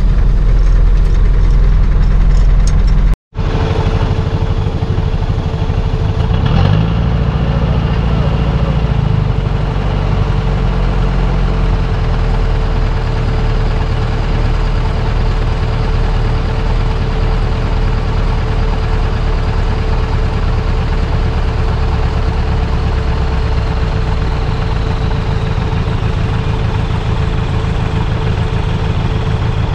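Off-road 4x4 engine running, loud and close at first, then after an abrupt cut idling steadily with a constant hum, with a brief rev a few seconds after the cut.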